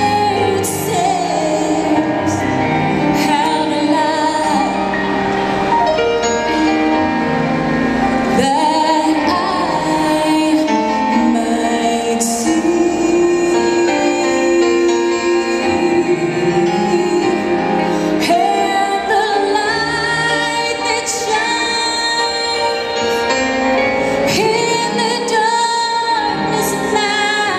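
A woman singing a southern gospel song into a handheld microphone over instrumental accompaniment, with long held notes that waver in vibrato.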